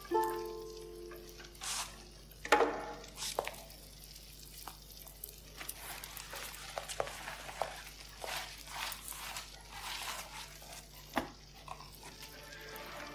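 Film soundtrack playing over a hall's loudspeakers: quiet irregular crackling and rustling, with a ringing plucked-string note at the start and another sharp plucked note about two and a half seconds in.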